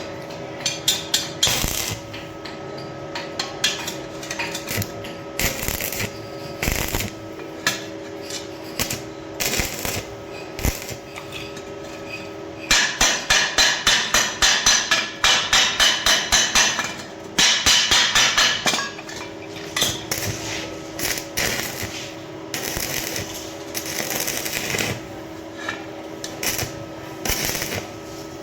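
Hammer striking steel pipe: scattered single blows, then a fast run of regular strikes at about three a second in the middle, over a steady electrical hum.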